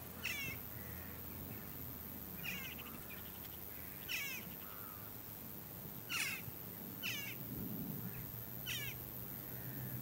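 Western jackdaws calling: about six short, sharp calls, one at a time and a second or two apart.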